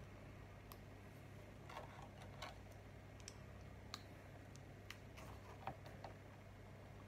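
Faint, scattered clicks of small Lego pieces being handled and pressed together, about nine in all, over a low steady hum.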